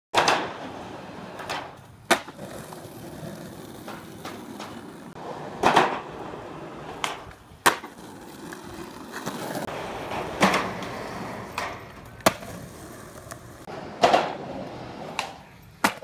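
Skateboard wheels rolling on asphalt, with sharp clacks of the board's tail popping and the board landing every second or two.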